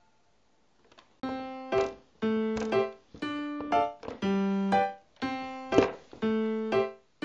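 Background music: a light keyboard tune with an even beat starts about a second in, after a short near-silent pause.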